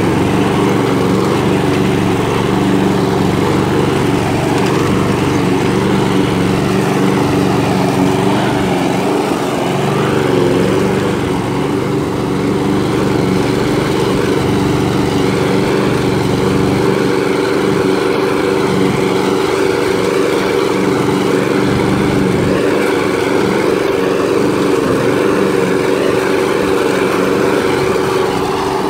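Walk-behind rotary lawn mower's small gasoline engine running steadily at a constant speed while mowing grass.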